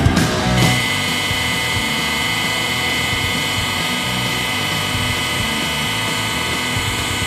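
Hydraulic press guillotine running steadily, its pump motor giving an even noise with a constant high whine as the blade lowers slowly. A snatch of rock music cuts off just under a second in.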